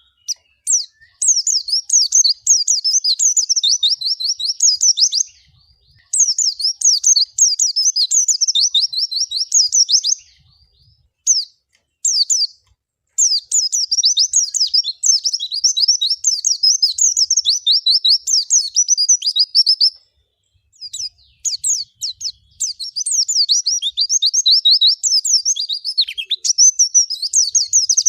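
Pleci (a white-eye, Zosterops) singing: long runs of fast, high twittering notes. There are four phrases of several seconds each, broken by short pauses.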